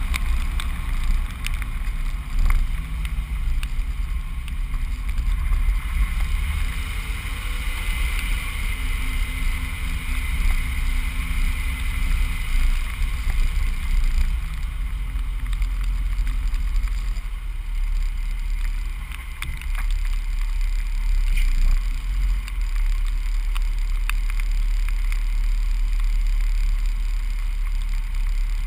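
Truck on the move: a deep rumble with wind buffeting the truck-mounted camera's microphone, over a faint engine hum that rises and falls.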